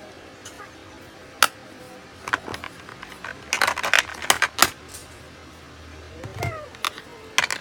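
Plastic makeup compacts, palettes and cases clicking and clattering as they are picked up and set down in a storage box. There is a sharp click about a second and a half in, a quick run of knocks around the middle, and a few more near the end.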